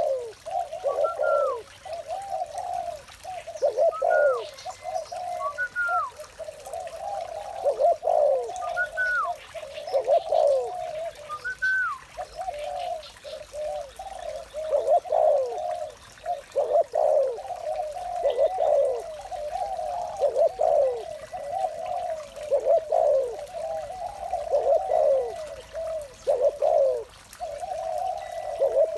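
Spotted dove cooing over and over in low, soft phrases, with a few short higher calls in the first half.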